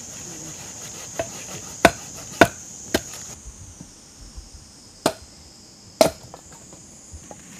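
Sharp wooden knocks of a stick striking the back of a machete blade to split wood (batoning), about six strikes, the loudest about two and a half seconds in. A steady high drone of insects runs underneath and drops away about three and a half seconds in.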